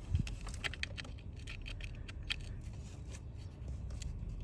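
Scattered light clicks and taps of hand tools and small metal parts being handled while unbolting engine components, with a dull knock just after the start.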